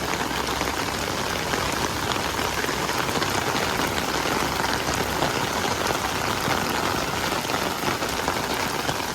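Heavy rain pouring steadily: a dense, even hiss of drops hitting the ground and nearby surfaces.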